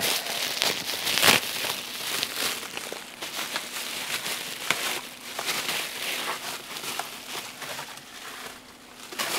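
Bubble wrap crinkling and rustling with small crackles as a wrapped foam fuselage is handled and pulled out of a cardboard box. It is loudest in the first couple of seconds and fades toward the end.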